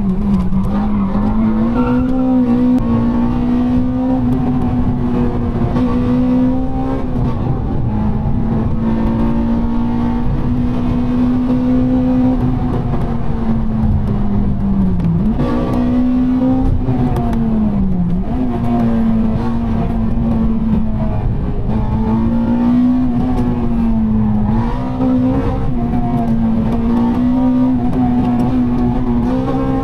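Honda Civic Type R EP3's 2.0-litre four-cylinder i-VTEC engine pulling hard, heard inside the cabin over tyre and road noise. The engine note holds fairly level, dips briefly twice about halfway through, and drops in pitch at the very end.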